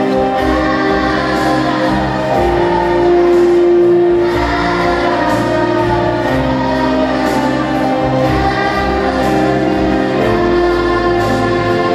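A children's choir singing with accompaniment, holding long notes over a steady beat.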